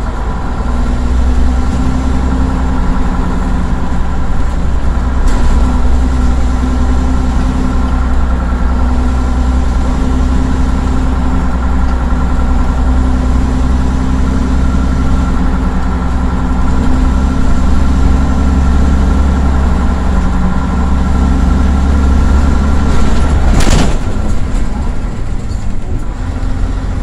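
Leyland Titan PD3 double-decker bus's Leyland O.600 six-cylinder diesel engine running steadily as the bus is driven, heard from inside the lower deck. Near the end there is a brief knock and the engine note changes.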